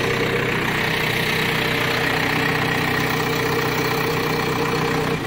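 Diesel engine of a Caterpillar 424B backhoe loader idling steadily.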